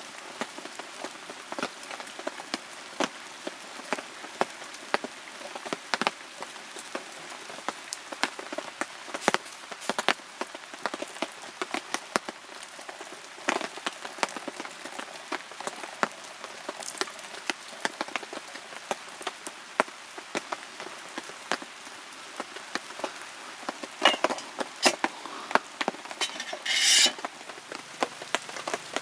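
Rain falling steadily, with many separate drops tapping irregularly and close. A brief louder rustle about 27 seconds in.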